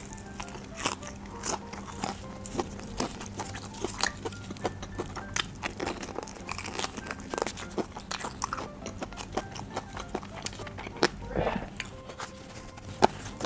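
Bites and chewing of crispy fried chicken: many short, sharp crunches of the breaded crust, several a second, with soft background music underneath.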